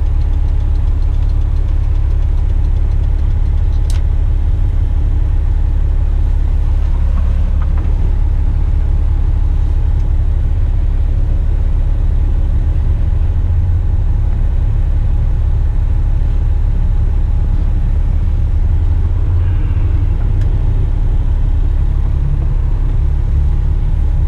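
Heavy rigid truck's diesel engine running with a steady low drone, heard from inside the cab, held in second gear with the exhaust brake engaged on a steep descent. There is one sharp click about four seconds in.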